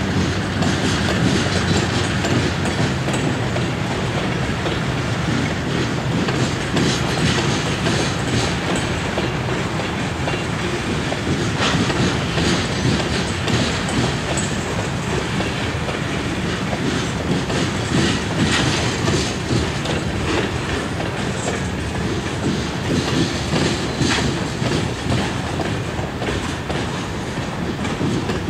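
Freight train of hopper cars rolling past, its wheels clacking steadily over the rail joints with frequent short metallic clanks throughout.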